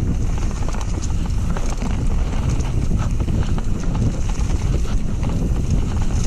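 Mountain bike riding fast down a rough trail: wind rushing over the microphone with a constant, irregular rattling and knocking from the bike and tyres over the ground.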